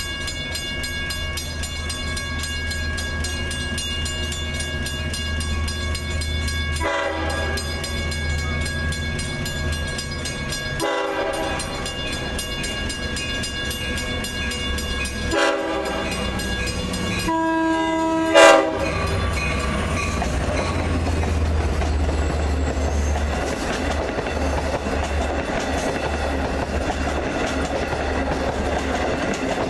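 Grade-crossing bell ringing steadily as a Long Island Rail Road diesel-hauled push-pull train approaches, its locomotive horn sounding four blasts, two long and then two shorter, the last the loudest. The train then runs past with a rising rumble of engine and wheels on the rails.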